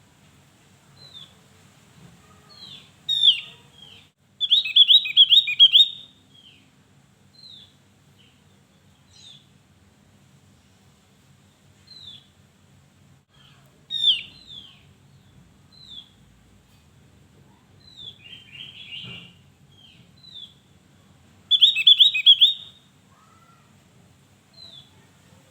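Javan grey-throated white-eye (opior Jawa) calling: scattered short, high downslurred chirps, with two louder bursts of rapid repeated notes, one about four seconds in and one about twenty-one seconds in.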